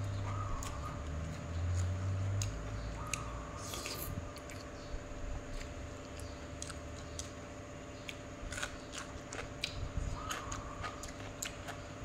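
Close-miked eating sounds: chewing and crunching of a spicy Thai cucumber salad with rice noodles, eaten by hand. Scattered crisp clicks and mouth smacks sound over a steady low hum.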